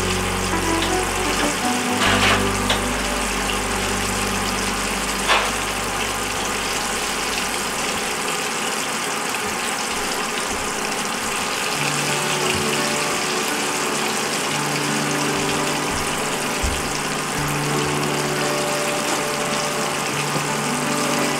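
Flour-coated tilapia pieces deep-frying in hot oil in a small saucepan: a steady, dense sizzling hiss, with two sharper pops about two and five seconds in.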